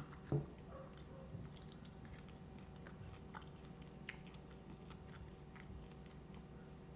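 A person quietly chewing fried jackfruit seeds, with faint, scattered clicks of the food being chewed. There is a short voiced hum from the eater right at the start.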